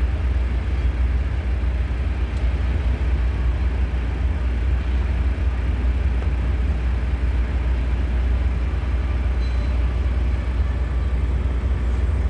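Steady low rumble of heavy vehicles, with no change in pitch or level.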